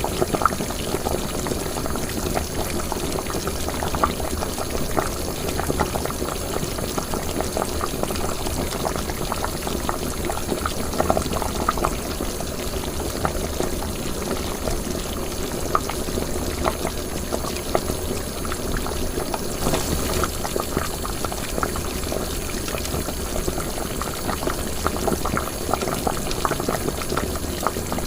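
Cooking liquid bubbling at a steady boil, with a continuous stream of small irregular pops.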